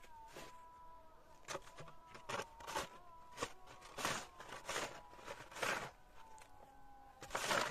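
Footsteps crunching in deep snow, an uneven series of about ten steps, the loudest near the end, with a faint steady high hum behind them.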